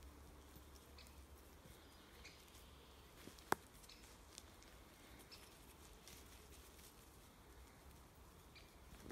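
Near silence: faint outdoor background with scattered soft ticks and crackles, and one sharp click about three and a half seconds in.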